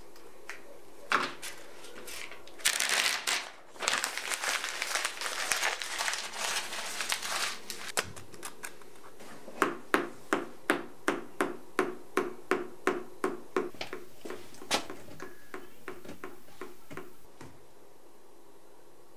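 Felt-tip marker working on a paper pad: scratching and paper rustling, then a quick run of sharp taps, about three a second, that stops after several seconds.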